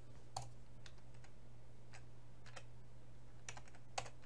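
Scattered keystrokes on a computer keyboard: about a dozen single key presses at uneven intervals, over a steady low hum.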